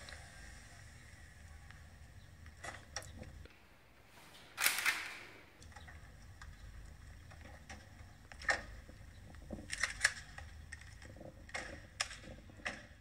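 Chevrolet Spark hatchback pulling up and parking with a low rumble, then a string of sharp clicks and knocks from the doors being opened and handled. One louder rasping noise lasts about half a second, roughly five seconds in.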